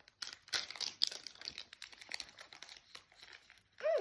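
Plastic snack packaging crinkling and rustling in short bursts as it is handled, then a short voiced 'mmm' that falls in pitch near the end.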